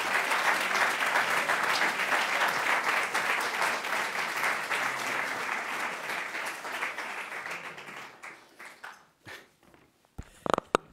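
Audience applauding, the clapping thinning out and dying away over the last few seconds. Near the end a few brief knocks as the podium microphone is handled.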